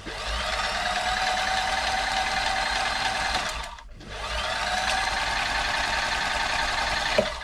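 Toyota model 2640 domestic sewing machine, freshly oiled, run fast twice. Each time the motor whine rises and then holds steady. There is a short stop about three and a half seconds in, and the second run cuts off near the end.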